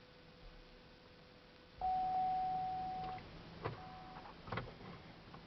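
Ignition on a 2003 Oldsmobile Aurora with a no-crank, no-start fault being keyed on: about two seconds in, a steady electrical tone comes on for over a second, then a shorter one. Several sharp clicks follow, the kind a key and relays make.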